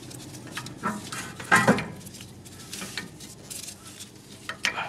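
Metal clinks and scrapes of a rear disc brake pad being fitted into its caliper bracket and spring clip: a handful of separate knocks, the loudest about a second and a half in.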